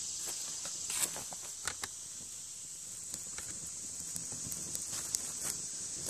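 Footsteps on leaf-strewn ground, with scattered light clicks and knocks, over a steady high insect hum.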